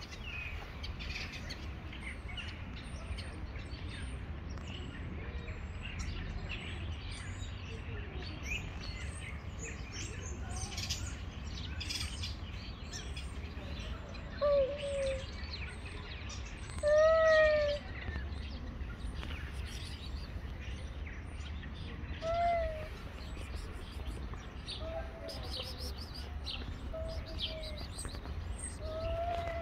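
A cat meowing a handful of times, loudest about halfway through, while small birds chirp throughout over a low steady rumble.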